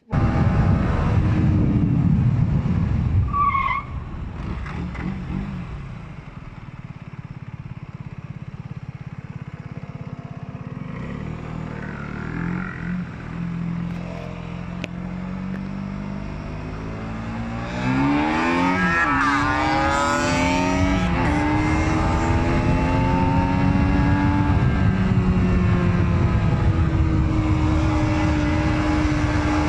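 Aprilia Tuono 125's single-cylinder four-stroke engine heard while riding, with wind noise on the microphone; about 18 seconds in the engine revs up sharply and then runs loud at high revs, its pitch slowly rising and falling with the throttle.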